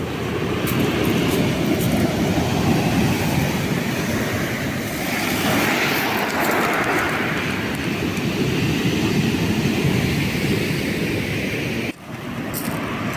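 Stormy sea surf: waves rolling and breaking on the beach as a steady loud rush, with a brighter wash swelling about halfway through.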